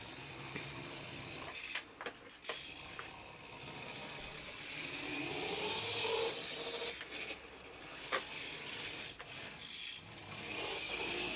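Tiny gear motors of 1/87-scale radio-controlled model trucks whirring and grinding in short spells, with a brief rising whine partway through and a few small clicks.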